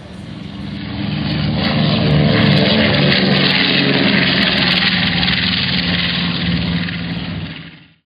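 A steady engine drone with a low pitched hum, growing louder over the first two seconds, holding, then fading out and cutting off just before the end.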